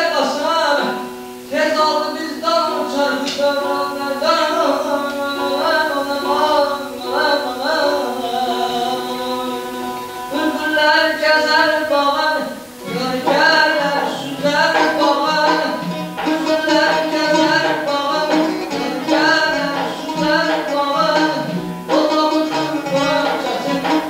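Azerbaijani mugham played live: a tar's ornamented melody over a gaval frame drum. It pauses briefly a little over halfway through, then goes on.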